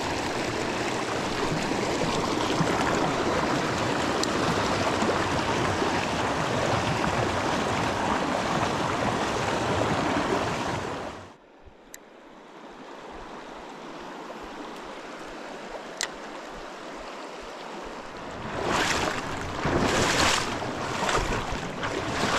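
Fast river water rushing steadily through a run. About halfway through it cuts off abruptly to a much quieter background with a couple of faint clicks, and louder uneven noise returns near the end.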